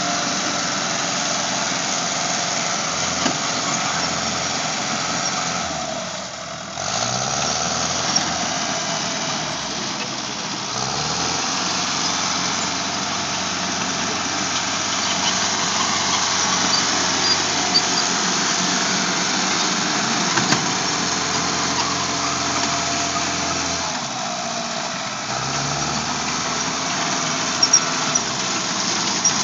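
Vehicle engines running steadily. Twice the engine note drops and then revs back up, and there are a few brief sharp knocks.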